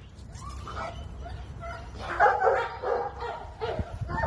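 A dog barking, a run of short calls that starts faintly and is loudest from about two seconds in.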